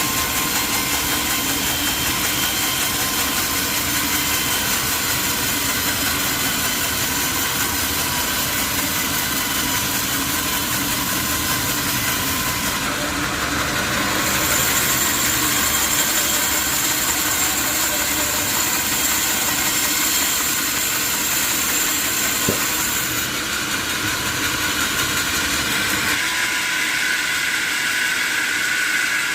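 Sawmill machinery running steadily, with a high whine joining for a stretch in the middle; the low rumble drops away near the end.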